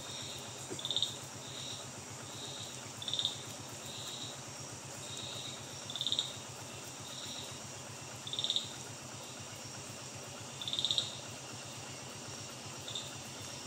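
Short, high-pitched trilled chirps from a small calling forest animal, repeating about every one to two seconds and alternating louder and softer. Under them runs a steady high insect drone and a faint low hum.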